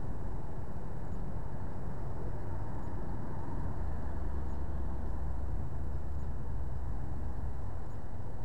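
Steady low rumble of a stationary car, heard from inside the cabin through a dashcam microphone. The deepest part swells a little in the middle.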